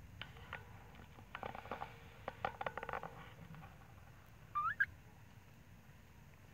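An animal calling: a rapid stuttering run of short pitched calls, then one short rising squeak about four and a half seconds in.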